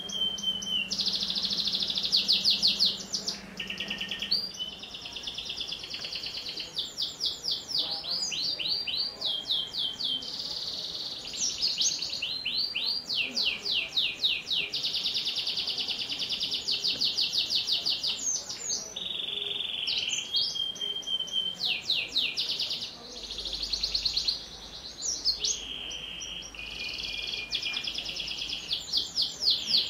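Domestic canary singing a long, nearly continuous song of fast trills and rolls of repeated notes, broken by a few held tones and short pauses.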